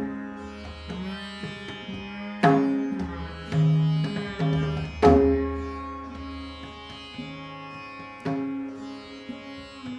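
Rudra veena played in Dhrupad style: spaced single plucks whose notes ring on and slide in pitch, over a steady low drone, with the strongest strokes about two and a half and five seconds in.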